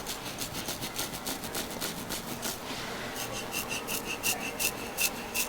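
Instrument-assisted soft-tissue scraping tool stroked rapidly back and forth over the sole of a foot, a quick rhythmic scraping at about five strokes a second. From about halfway each stroke also gives a short high squeak.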